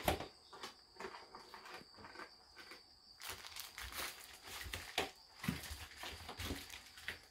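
Rustling and scattered small clicks and taps as sugar is scooped out with a tablespoon for the sushi vinegar.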